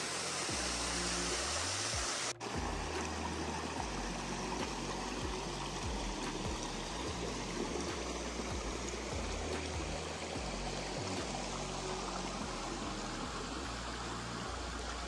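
Creek water running over rock in a steady rush, with a brief dip about two seconds in.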